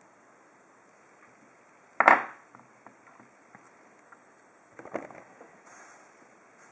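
Hard knocks and clicks of a stainless steel padlock and its small parts being handled on a work surface during disassembly: one sharp knock about two seconds in, then a smaller clatter of clicks near five seconds.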